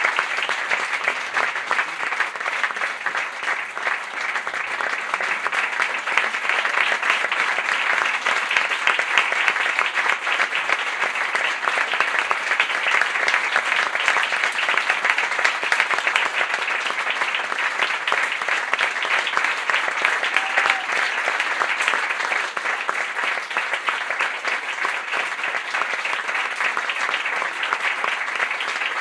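Audience applauding: many hands clapping in a dense, steady stream that keeps going.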